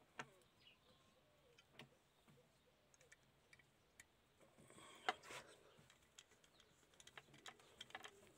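Faint clicks and taps of small scale-model car parts being handled and snapped together, with a sharper click about five seconds in and a quick run of clicks near the end.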